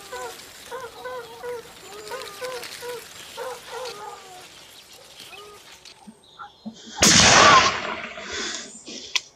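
Repeated short bird calls, then about seven seconds in a single loud gunshot at a wild boar, fading away in a long echo.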